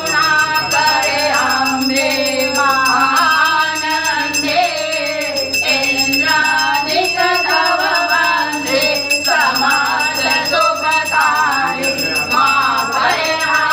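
Voices singing an aarti devotional hymn, with a steady, fast metallic jingling and ringing keeping time behind them.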